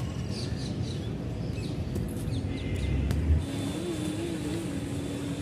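Outdoor ambience: a steady low rumble of distant traffic, with a few bird chirps in the first second and a brief bump a little over three seconds in.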